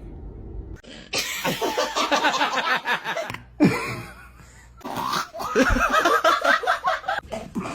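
Laughter in two long bouts, with a couple of short sharp sounds between them.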